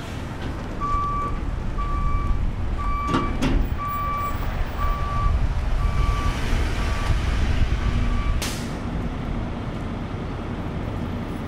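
A truck's reversing alarm beeping steadily, about one beep a second, over the low rumble of a heavy engine. The beeping stops and a short hiss follows as the rumble drops.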